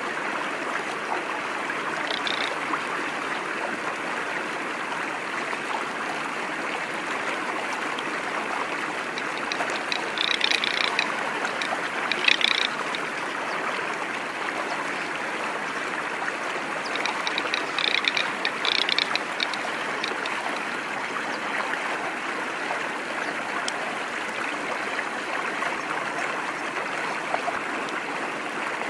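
Steady rush of running water, with short rattling bird calls breaking in a few times: once early, twice around the middle and in a cluster about two-thirds through.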